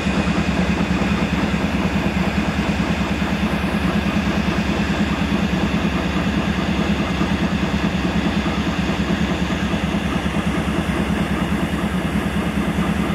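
GE Dash 8-32B locomotive's 12-cylinder FDL diesel idling steadily with an even, rapid low beat, running on its own after its first start out of storage.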